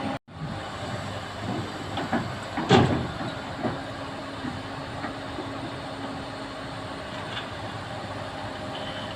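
Komatsu excavator working, its engine running steadily, with a run of sharp metallic clanks and knocks about two to four seconds in, the loudest near three seconds.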